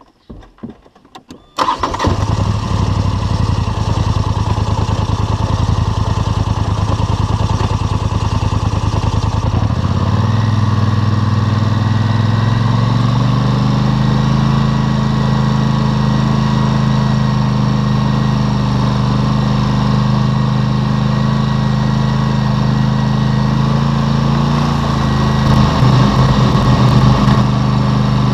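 ATV engine starting abruptly a couple of seconds in and then running steadily. About a third of the way through, its pitch climbs in a few steps and holds higher to the end.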